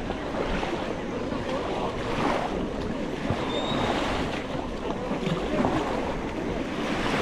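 Waves washing in on a sandy beach, a steady rushing that swells and eases, with wind buffeting the microphone.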